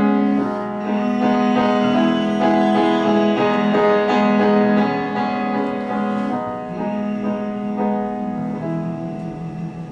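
Solo piano playing the closing bars of a slow ballad, the notes growing quieter toward the end.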